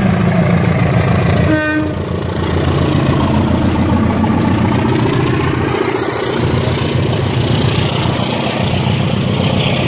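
CC203 diesel-electric locomotive pulling a passenger train out of the station, its diesel engine running loud and low as it passes close by, with one short horn toot about one and a half seconds in. The train's cars roll past after it.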